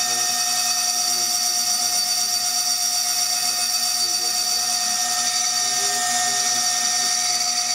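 High-speed spindle of a CNC milling machine running steadily while a freshly sharpened cutter engraves a glass beer bottle: a constant high-pitched whine with several held tones over a hiss.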